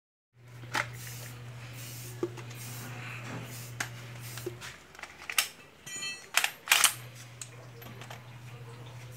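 Hard plastic clicks and knocks as a Bosch cordless tool and its long blower nozzle are handled, with a cluster of louder clatters about six to seven seconds in. A steady low hum runs beneath, dropping out for about two seconds in the middle.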